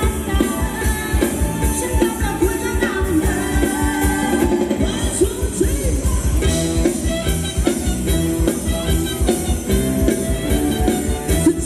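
Live band playing upbeat Thai ramwong dance music with a steady, fast drum beat, and a voice singing at times over it.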